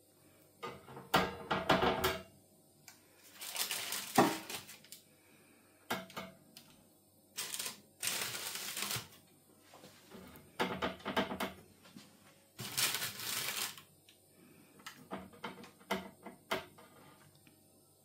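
A metal spatula scraping under cookies on parchment paper in an air fryer basket and setting them down on a wire cooling rack: about six separate bouts of scraping, rustling and light metallic clicks with short pauses between them.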